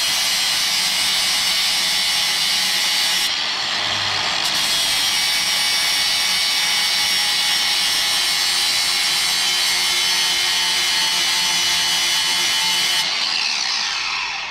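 Ryobi angle grinder with a flap disc grinding the edge of a ride-on mower blade to sharpen it, running steadily with a brief easing off about three to four seconds in. Near the end it is switched off and winds down with a falling whine.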